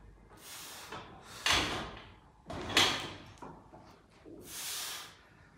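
Sharp, hissing breaths and forced exhales of a lifter bracing and pressing a heavy barbell on the bench, four of them with short gaps between.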